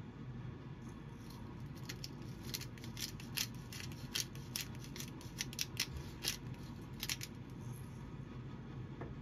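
Pepper mill grinding black pepper: a run of short crunching clicks, irregularly spaced, starting about two seconds in and stopping after about five seconds, over a low steady hum.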